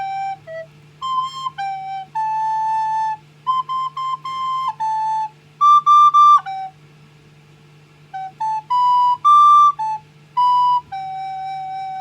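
A child playing a tune on a recorder: a run of clear single notes, some short and some held, pausing for about a second and a half midway before the melody resumes.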